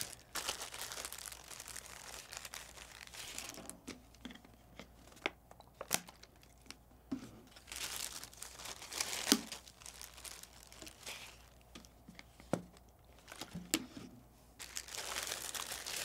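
Clear plastic zip-top bag crinkling as it is handled and opened, with scattered small clicks from the plastic.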